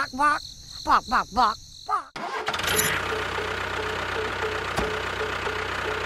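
Short squeaky cartoon-style vocal chirps, then about two seconds in a miniature tractor's engine sound starts abruptly and runs steadily with a faint regular pulse.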